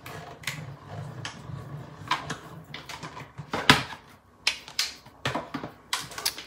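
Hand-cranked Stampin' Cut & Emboss die-cutting machine rolling a cutting-plate sandwich through its rollers. There is a low rumble for the first half and irregular sharp clicks and cracks throughout, the loudest near the middle.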